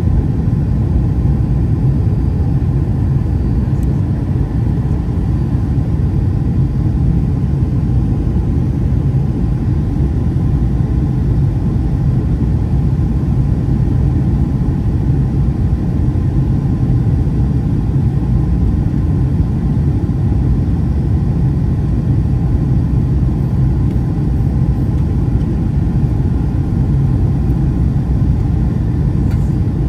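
Steady cabin rumble of a Boeing 757-200 in flight: engine and airflow noise heard from inside the cabin, deep and even throughout, with a faint steady tone above it.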